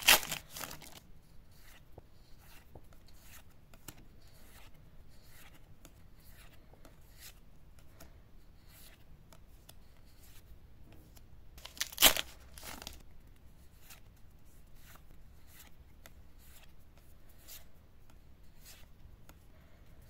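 A foil Pokémon booster pack torn open with a loud crackle, then cards slid one by one from the back of the stack to the front, a soft swish or click every half second or so. A second loud crackle of the wrapper or card stack comes about twelve seconds in.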